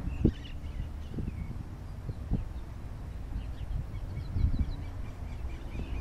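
Faint, short high chirps of small birds calling over a low, uneven outdoor rumble with a few soft thuds.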